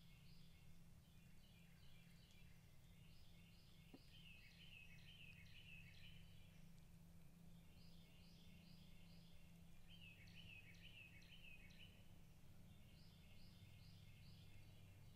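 Faint chorus of short, repeated chirping calls in overlapping runs, over a low steady hum.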